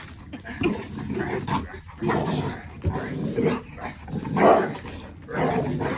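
Dog growling and barking in repeated rough bursts during rough play, the loudest about four and a half seconds in. It sounds vicious but is play and excitement, not real aggression.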